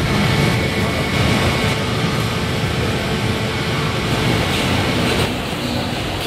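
Steady low din of a busy food court, dropping slightly in level about five seconds in.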